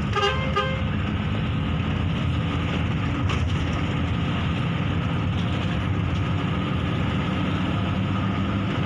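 Bus diesel engine running steadily under load, heard from inside the cab. Right at the start a horn gives a quick run of short toots.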